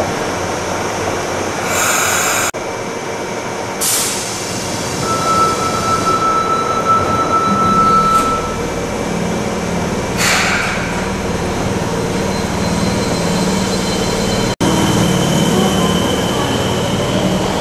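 Fukuoka subway train running: a steady rumble of the cars, with a thin high whine held for a few seconds near the middle and a few short hisses. The sound cuts out for an instant twice.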